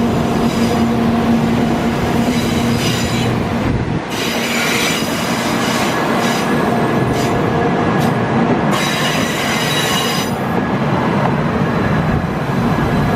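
700 series Shinkansen train rolling slowly on rails, its wheels squealing on and off in high-pitched stretches.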